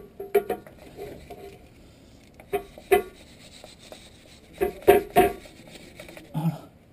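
Hand wire brush scrubbing the metal where the oil pump drive gear sits, in short spells of strokes with a few knocks. The loudest spell comes about five seconds in.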